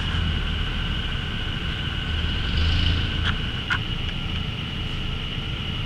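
Off-road vehicle engine running with a low, steady rumble that swells briefly about two and a half seconds in, under a steady high-pitched drone.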